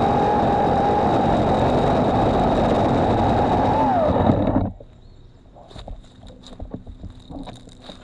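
Cordless EGO Power+ PH1400E power head with chainsaw attachment running with a steady whine. About four seconds in its pitch falls and it winds down and stops, leaving only faint scattered knocks.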